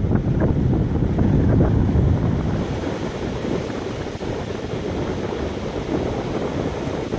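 Wind buffeting the microphone over the wash of ocean surf breaking on the beach; the wind eases after about two and a half seconds.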